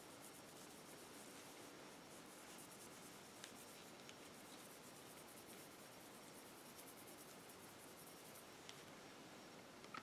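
Faint rubbing of a microfiber cloth buffing a revolver's metal cylinder with metal polish, with a few soft clicks.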